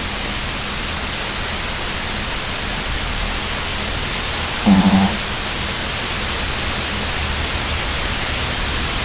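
A sleeping dog snoring once, a short pitched snore about five seconds in, over a steady hiss.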